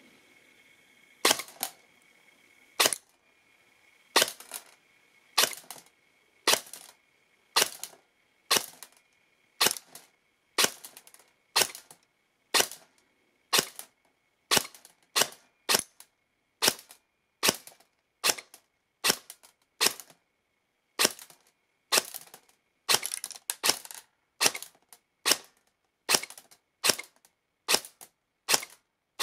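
Ares Amoeba airsoft electric gun fitted with a 3D-printed air nozzle, firing about thirty single shots through a chronograph. The shots come about one every second and a half at first and quicken to more than one a second toward the end.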